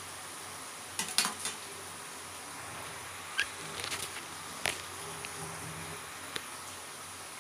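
Brinjal slices frying in oil in an aluminium wok over a wood fire, a low steady sizzle. The metal skimmer ladle clinks against the pan in a quick cluster about a second in, with a few single clicks later.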